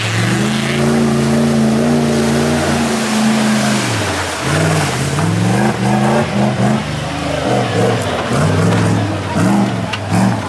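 Off-road 4x4 race truck's engine held at high revs for about four seconds, then revved up and down again and again as the throttle is worked on a climb.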